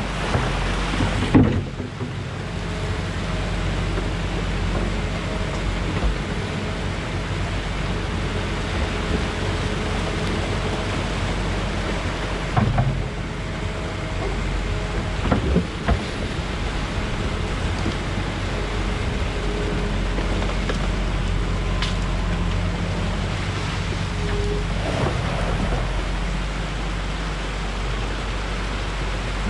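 Muddy water rushing through a breached beaver dam, with an excavator's diesel engine running steadily underneath. A few short knocks as the bucket works at the dam.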